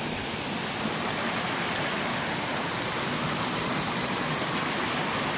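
A small forest stream running over rocks: a steady rush of water close by.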